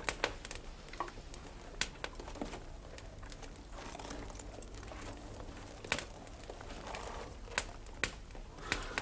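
Quiet background with a steady low hum and a few irregular sharp clicks and crackles scattered through it.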